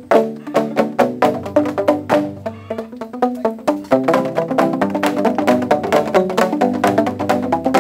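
Music built on quick, rhythmic pitched percussion strikes, growing busier about four seconds in.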